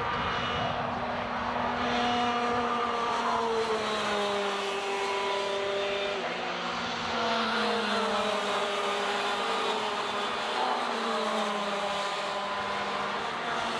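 Several racing kart engines buzzing at high revs, their notes overlapping, the pitch dropping again and again as the karts slow for corners and climbing as they pull away.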